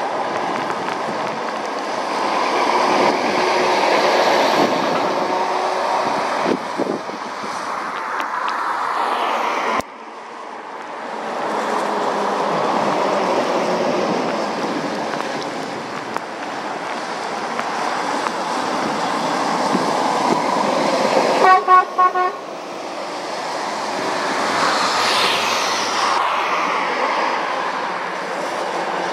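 Lorries passing on the road, with a steady rush of engine and tyre noise that breaks off abruptly about ten seconds in and then picks up again. About two-thirds of the way through, a lorry horn gives a quick run of four or five short toots.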